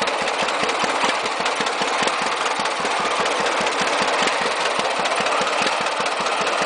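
John Deere 60 two-cylinder tractor engine idling: a steady, even beat of low pops.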